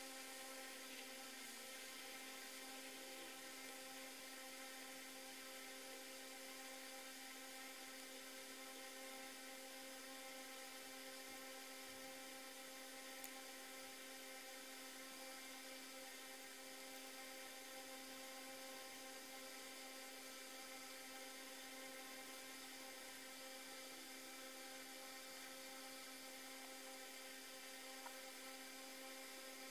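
Faint, steady whir of a metal spinning top spinning on a plastic stadium floor, holding one constant pitch.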